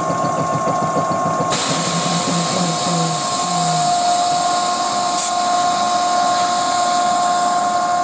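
Tobu 8000 series railcar's D3-FR air compressor running under the car with a steady whine; a hiss joins about a second and a half in.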